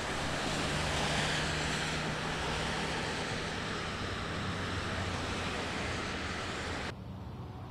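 Steady hiss of traffic on a rain-wet road, cars' tyres swishing past, with a faint low hum in the first half. Near the end it drops abruptly to a much quieter background.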